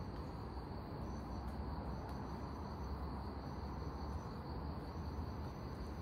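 Insects chirring in a steady high-pitched drone, with a second, higher trill coming and going about once a second, over a low, even background rumble.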